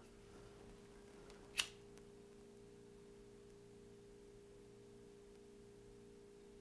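A disposable lighter being flicked once, a single sharp click about one and a half seconds in, to melt the cut end of a nylon D-loop cord on a bowstring. A faint steady low hum runs underneath.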